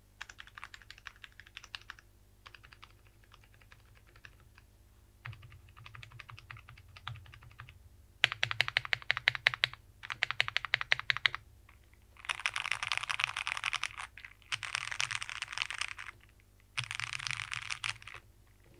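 Typing on a plateless JRIS65 mechanical keyboard with Cherry MX Brown switches and dye-sub keycaps, in short bursts of keystrokes with pauses between them. About halfway through, the bursts turn louder and much faster, into a dense clatter.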